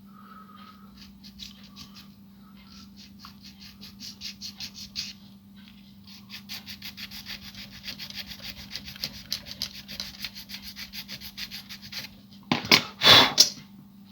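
Small hand file rasping back and forth on a freshly set repair piece of a plastic toy part, in quick even strokes with short pauses, to take it down where it fits too tight. Near the end come a few loud sharp knocks, under a steady low hum.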